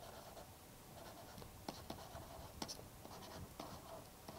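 Faint scratching and light taps of a stylus writing on a tablet screen.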